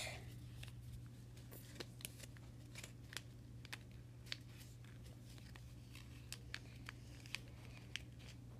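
Folded paper being handled and creased by hand while a paper ninja star is folded: faint, scattered crisp ticks and rustles, over a steady low hum.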